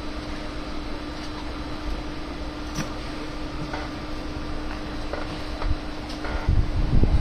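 Steady hum of a running fan, holding one low tone, with a few faint small clicks; near the end a louder low rumble comes in.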